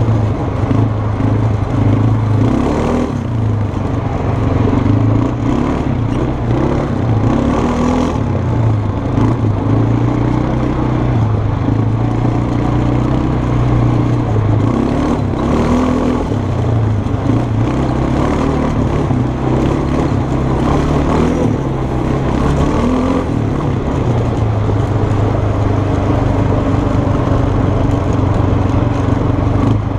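Kymco 300 quad's single-cylinder four-stroke engine running as the quad is ridden along a dirt trail, its pitch rising and falling a little with the throttle.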